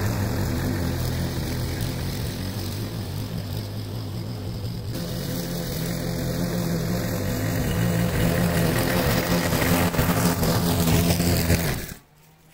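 Briggs & Stratton-engined walk-behind lawn mower running steadily while cutting grass, its engine note dipping a little and then rising again. The sound drops out abruptly for about half a second near the end.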